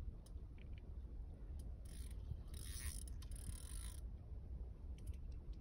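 Fishing reel ratcheting and whirring for about two seconds in the middle, with a few scattered clicks around it, as the bent rod plays a hooked fish. A low steady rumble runs underneath.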